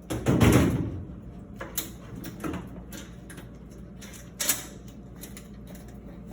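Sheet-metal panel of a Speed Queen top-load washer being lifted and slid out: a loud scraping clunk about half a second in, then a few scattered clicks and knocks.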